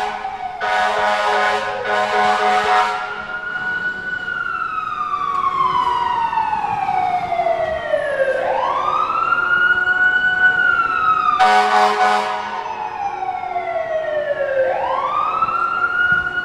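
Fire truck siren wailing: its pitch climbs quickly, then sinks slowly over several seconds, about twice. Short blasts of the truck's air horn break in, two in the first three seconds and one about eleven seconds in.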